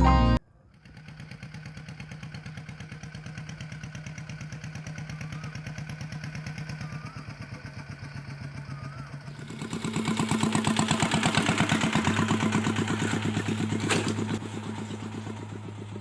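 Engine running with a rapid, even pulse, growing louder and harsher about ten seconds in.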